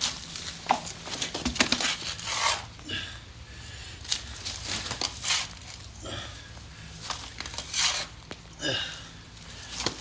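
A small garden trowel scraping and scooping packed mud and grit out of a blocked drain gully, in a run of irregular gritty scrapes about once a second.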